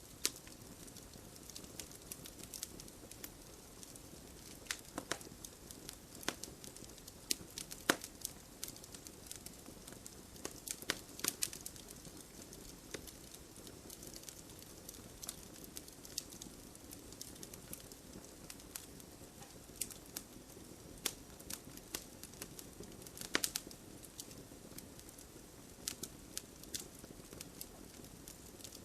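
Wood fire of burning logs crackling and popping, with irregular sharp snaps over a soft steady hiss of the flames.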